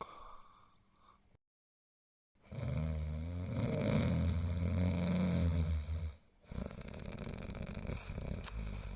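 An animated character snoring: after a brief dead-silent gap comes one long, loud, low snore lasting about four seconds, followed by quieter snoring.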